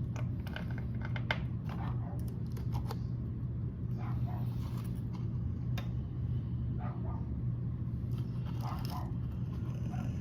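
Dogs giving a few short barks over a steady low hum, with several sharp clicks in the first few seconds.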